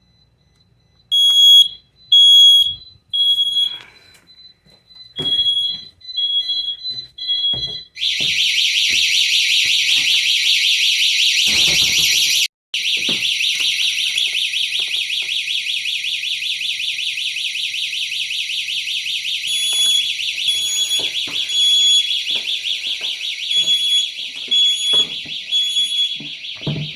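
A smoke detector being tested sounds its evacuation pattern, two sets of three short high beeps, over a faint steady tone. About eight seconds in, the GE Choice Alert alarm system's siren comes on, loud and rapidly pulsing, because the entry delay after the tripped motion sensor has run out. Near the end the smoke detector's triplets of beeps sound again over the siren.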